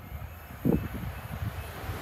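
Greater Anglia Class 745 electric multiple unit approaching on the main line, its rolling noise building steadily toward the end, with a few low thumps underneath.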